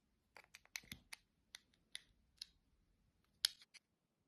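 Small sharp clicks and taps of a fingerboard truck and its tiny screws being fitted to the deck, irregular, with a louder cluster of clicks about three and a half seconds in.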